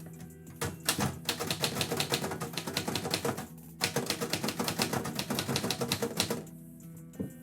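Typewriter keys clattering in two quick runs of strikes, broken by a short pause in the middle, with a single stray strike near the end.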